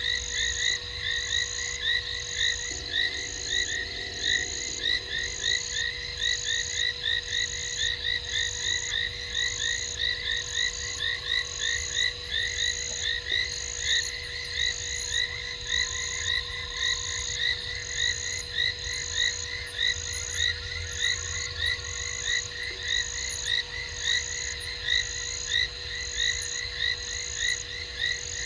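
Chorus of frogs calling at a waterhole at night: many quick chirping calls overlapping without a break, with a high pulsing note repeating about once a second.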